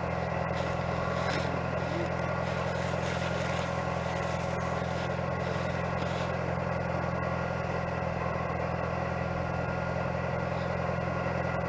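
Tractor engine idling steadily, an even low hum with no change in speed.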